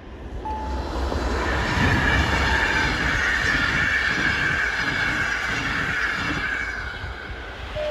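PKP Intercity passenger train passing at speed: a steady noise of wheels running on the rails, with low rumble and irregular knocks, easing off a little near the end as the last coach goes by.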